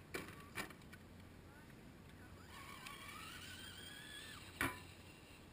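Electric drive motor of a 1:10 scale Ascender RC rock crawler whining faintly, rising in pitch for about two seconds and then cutting off sharply. A single loud knock follows, with two softer knocks near the start.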